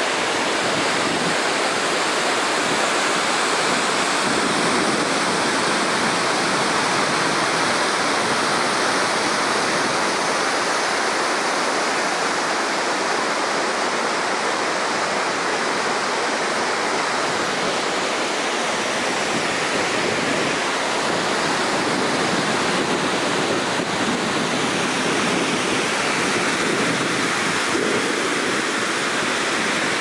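The River Tees cascading down the rocks of Cauldron Snout waterfall: a steady, even rush of white water.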